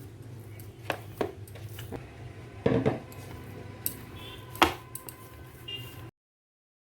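Kitchen dishes and utensils knocking and clinking a few times over a low steady hum, the sharpest clink about four and a half seconds in; the sound cuts off abruptly about six seconds in.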